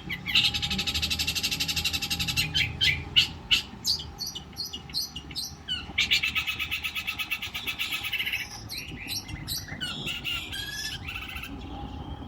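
Long-tailed shrike (cendet) singing: two fast, harsh rattling trills of about two seconds each, with sharp single notes between them and short whistled notes near the end.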